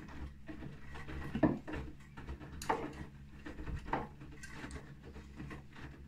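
Bosch front-loading washing machine mid-wash: the drum turning with wet laundry tumbling and sloshing in the water over a steady motor hum, with a soft splash roughly every second and a half as the load drops.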